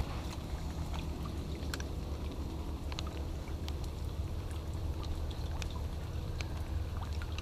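Rain falling on creek water and mangrove leaves: a steady wash dotted with scattered sharp drip ticks, over a low steady rumble.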